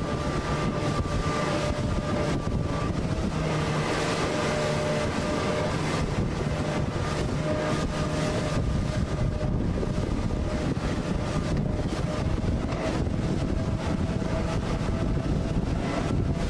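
Wind buffeting the microphone over the steady drone of a boat engine, with choppy water around the hull.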